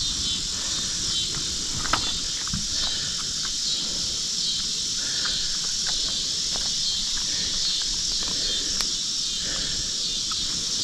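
Steady high-pitched chorus of insects buzzing outdoors over a low background rush, with a few scattered faint clicks.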